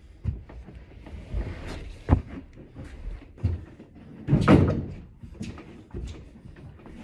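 Irregular knocks and thumps of movers handling a load on a staircase. A sharp knock comes about two seconds in, and a louder, longer thud about four and a half seconds in.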